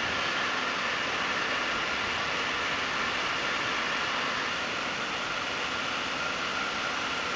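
Electric heat gun running steadily: an even blowing hiss with a faint whine, as its hot air heats a bend in a plastic car bumper to straighten it.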